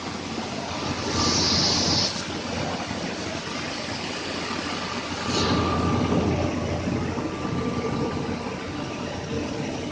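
Machinery of a small wheat flour mill running: roller mills, their motors and the air-conveying fans and pipes together make a steady mechanical din with a faint steady whine. A burst of hiss comes about a second in, and the din grows louder for a couple of seconds in the middle.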